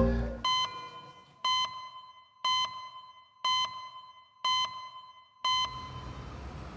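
Six short electronic beeps, one a second, each a clear pitched tone with a ring of higher overtones, marking the seconds like a clock. Music fades out just before the first beep.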